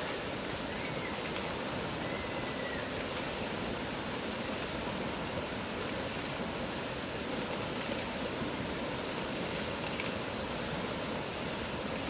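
Swollen mountain river rushing over rocks: a loud, steady wash of whitewater noise.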